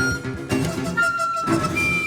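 A chamber ensemble of Chinese and Western instruments playing a slow contemporary piece. A high held note ends just after the start, and about a second in a new high note enters and slides slightly downward, over shorter lower notes.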